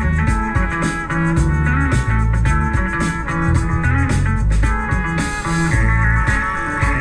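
Rock music with electric guitar, bass and drums, an instrumental passage with no singing.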